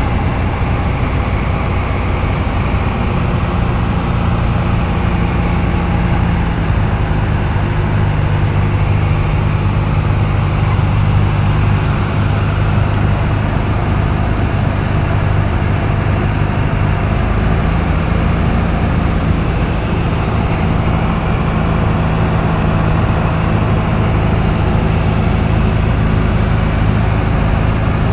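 Piper PA28-161 Warrior's four-cylinder Lycoming engine and propeller running steadily on final approach, heard inside the cabin with airflow noise. The engine note drops a step about six seconds in.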